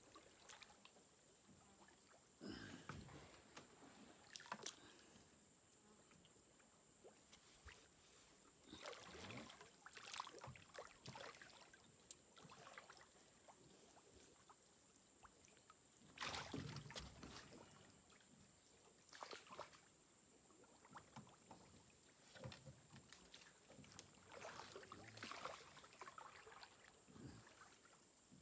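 Mostly quiet, with scattered soft sloshes of water and knocks against a small boat's hull every few seconds.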